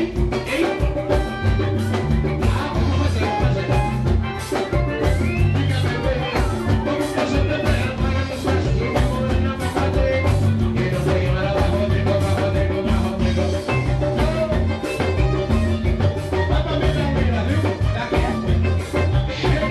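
Live band playing upbeat dance music, with a drum kit keeping a steady beat under a repeating bass line.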